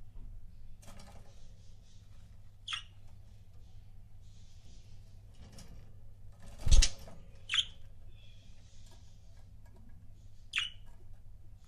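Budgerigars giving a few short, sharp, separate chirps. A loud sharp knock comes a little before the middle of the chirps, over a steady low hum.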